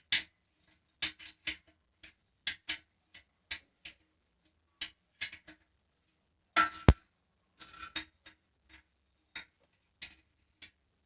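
A run of irregular sharp clicks and taps, one to three a second, with a very sharp click about seven seconds in.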